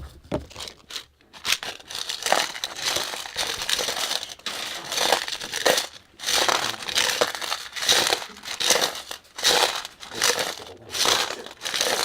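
Foley props being crushed and crumpled, a burst of crinkling and crunching about once a second.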